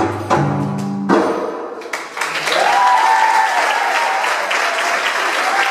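Drum-solo music stops about a second in, and audience applause and cheering follow, with a voice whooping upward and holding the note for about a second and a half near the middle, and again briefly near the end.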